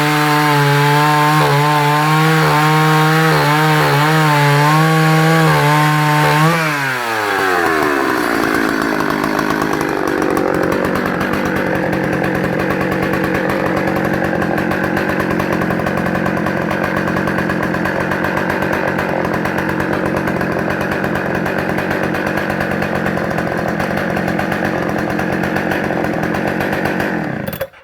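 Partner Farmsaw F55 55 cc chainsaw running at high revs in a cut, its pitch wavering under load. About six and a half seconds in, the revs fall away as the cut ends, and the saw idles steadily. Near the end the engine is switched off and stops abruptly.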